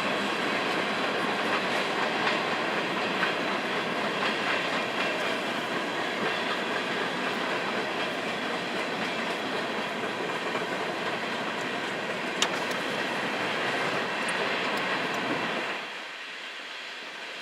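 Coal train's freight cars rolling past, their steel wheels clattering over the rail joints. The noise drops off suddenly near the end.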